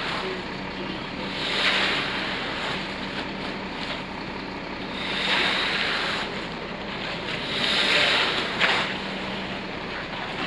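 A steady engine hum under repeated swells of rushing noise, about four swells two to three seconds apart.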